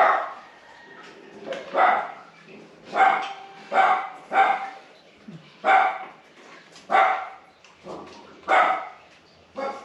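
A dog barking over and over in short single barks, about one a second, nine in all.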